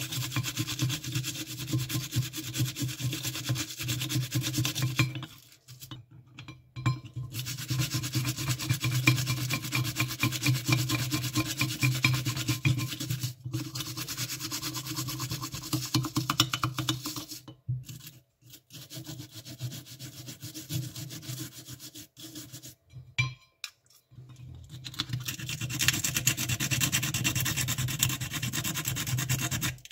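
A toothbrush scrubs a small metal part held in pliers in quick back-and-forth strokes. The scrubbing stops briefly three times, and near the end it changes to a finer, higher rubbing.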